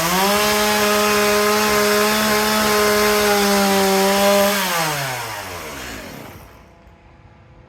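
Two-stroke chainsaw run up to full throttle and held there steadily for about four seconds, then the revs wind down and die away about five seconds in.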